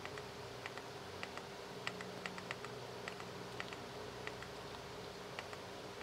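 Keys of an Aula budget mechanical keyboard being pressed one at a time, sharp separate clicks at an uneven pace, a few a second, as keys are tapped to cycle the backlight colours and effects.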